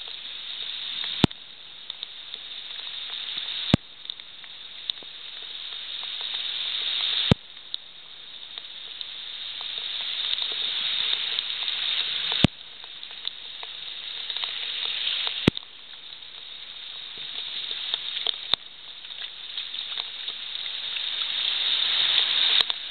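Rain pouring onto flooded pavement and grass, a steady hiss. Every few seconds there is a sharp click, after which the hiss drops back and slowly grows louder again.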